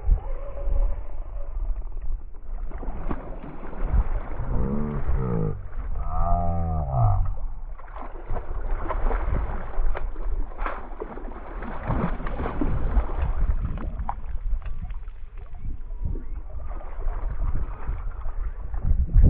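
Knocking, clicking and rustling of a catch being handled aboard a small fishing boat, with a few low moaning tones that rise and fall between about four and seven seconds in.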